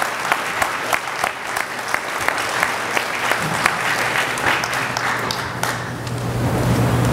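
Audience applauding with dense hand clapping, dying away about six seconds in as a steady low hum comes up.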